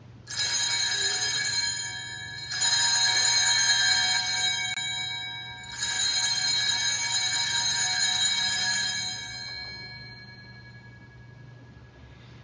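Altar bells rung three times, each ring a cluster of bright metallic tones that slowly fades, the last dying away near the end. They mark the elevation of the chalice at the consecration.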